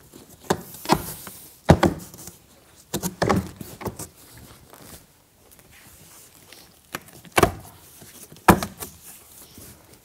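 Staples being pulled from the bottom edge of a large cardboard shipping crate by hand: irregular sharp snaps and knocks on the cardboard, several of them, the loudest about two seconds in and twice more near the end.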